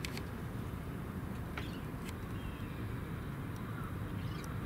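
Outdoor background noise: a steady low rumble, with a few faint clicks and a brief faint high chirp a little past halfway.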